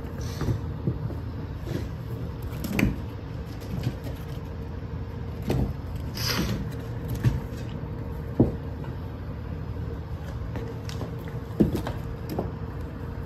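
Light knocks and taps of kittens playing on a wooden floor, scattered at irregular intervals over a steady low hum.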